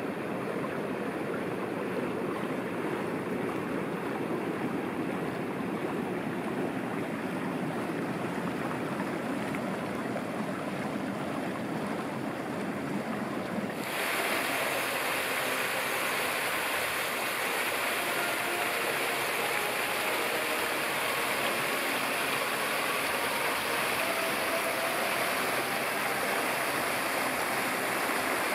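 A steady, dull outdoor rushing noise, then, after a sudden cut about halfway, the brighter, louder hiss of fountain jets splashing into a stone basin.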